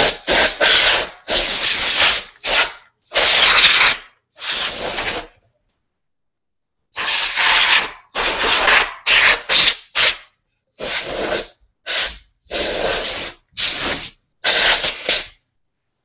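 Can of compressed air blowing dust out of a NAS's open case in a series of short hissing blasts, most under a second, with a pause of nearly two seconds about five seconds in.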